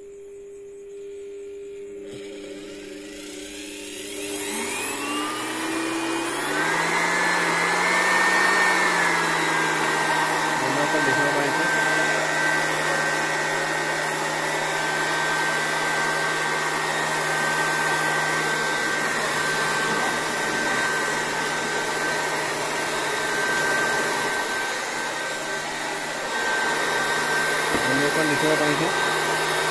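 Polymake 400 W electric air blower switched on at its lowest speed setting: the motor whine rises over the first several seconds, then runs steadily with a rush of air. It dips slightly, then grows louder again near the end.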